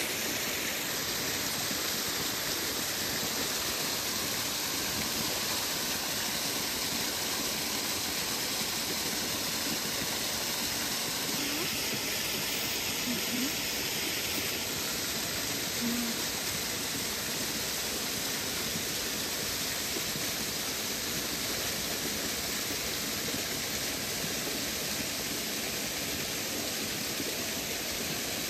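Running water, a steady rush from a spring-fed stream.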